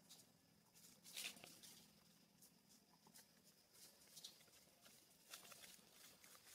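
Faint crackling and rustling of dry leaf litter as macaques shift and walk on it, in scattered short crackles, the clearest about a second in.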